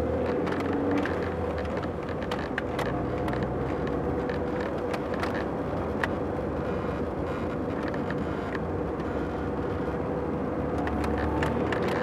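Car cabin noise while driving: a steady engine hum under road and tyre rumble, with scattered light clicks and rattles.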